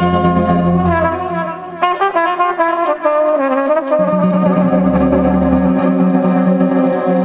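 Trumpet played live through a microphone and PA over electronic keyboard accompaniment. It holds a long note, plays a quick run of notes falling in pitch, then settles on another long, lower note as the bass line comes back in.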